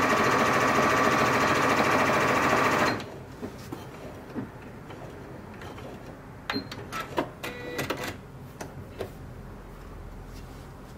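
Elna Experience 560 computerized sewing machine running at full speed through stretch fabric, stopping abruptly about three seconds in. A scattering of quieter clicks and short mechanical sounds follows.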